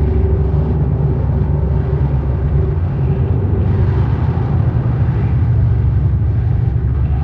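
Dark ambient noise drone: a dense, steady low rumble with a faint held tone above it that fades out a few seconds in.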